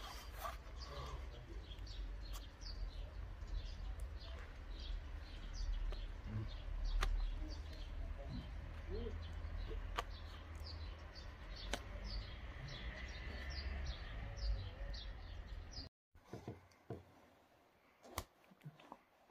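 Small birds chirping over a low rumble, short high falling notes a few times a second. About sixteen seconds in the sound cuts out, leaving quiet room tone with a few clicks.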